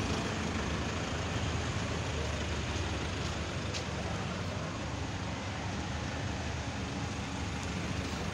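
A motor vehicle engine running steadily in a low hum, over a constant wash of outdoor noise.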